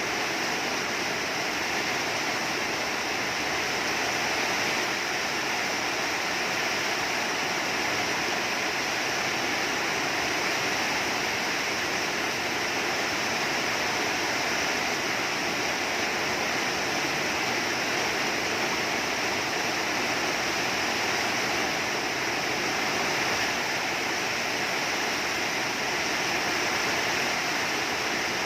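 Heavy rain falling: a steady, even hiss that holds at one level throughout.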